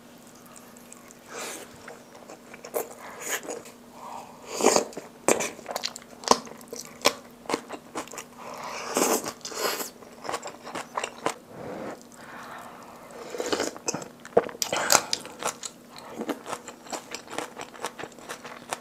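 Close-miked eating: a person biting into fried Spam and chewing, with many irregular short crunches and mouth clicks.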